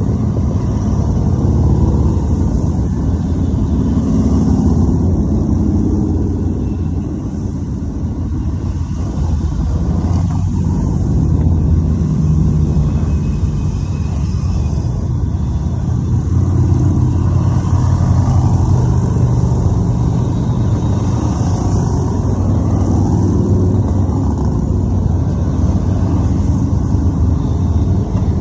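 A long procession of motorcycles passing one after another, their engines running in a continuous low drone that swells every few seconds as each group goes by.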